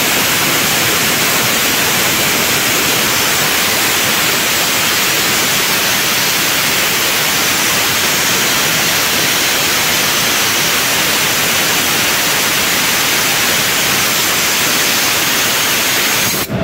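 Air blasting out of the open drain cock of a locomotive's centrifugal dust collector, a loud steady hiss carrying water mist as the collector is drained. The hiss cuts off abruptly near the end as the cock is shut.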